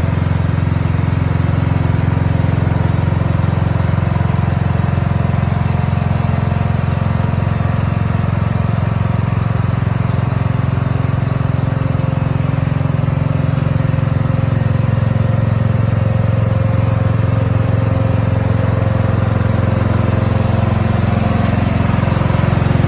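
Riding lawn mower engine running steadily as the mower is driven slowly.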